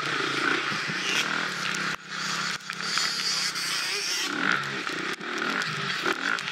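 Dirt bike engine running under changing throttle, the revs rising and falling, with a brief drop in level about two seconds in.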